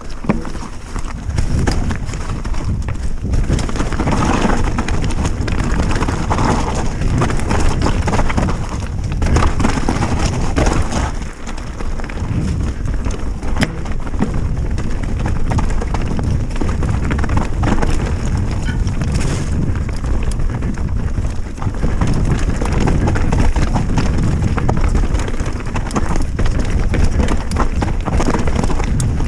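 Specialized Stumpjumper mountain bike descending a dirt singletrack at speed: tyres rolling over dirt and leaves, and the bike rattling and clattering over bumps. A steady low rumble of wind rushes over the camera microphone.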